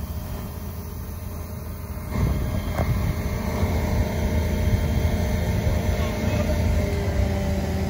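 A heavy engine running steadily with a low drone that gets louder about two seconds in, from the crane lifting equipment working a suspended 18,000-gallon tank.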